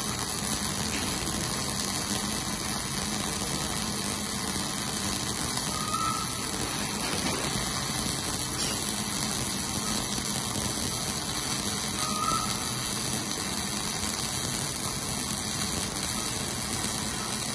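Electric arc welding: the arc hisses and crackles steadily as a continuous bead is laid, with no break.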